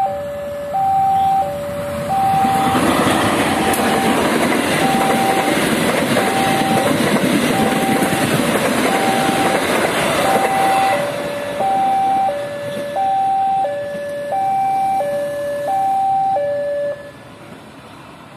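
Level-crossing warning signal sounding an alternating high–low two-tone chime, each tone lasting about two-thirds of a second. A parcel train hauled by a CC 201 diesel locomotive rushes past over it from about two and a half to eleven seconds in. The chime stops about seventeen seconds in.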